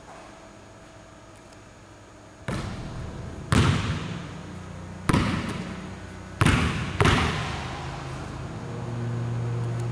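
Basketball bouncing on a hardwood gym floor: five echoing hits, beginning about two and a half seconds in. A low steady hum follows near the end.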